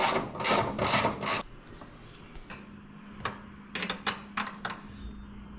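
Handling and tool noise from work under a car's hood: four quick rubbing, scraping strokes, then a scatter of sharp light metallic clicks and taps.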